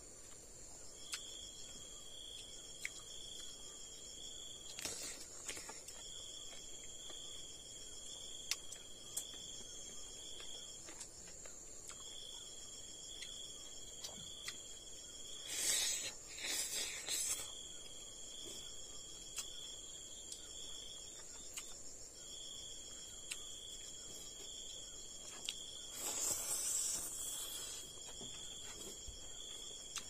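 Insects chirring: a steady high-pitched drone, with a lower chirr that comes in bouts of a few seconds and short breaks. Louder eating noises stand out about halfway through, as a piece of fish is bitten, and again near the end.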